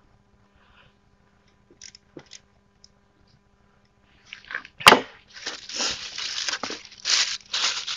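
A few faint clicks, then a sharp crack about five seconds in, followed by repeated scraping and crumpling of a cardboard sheet being pushed and folded into place.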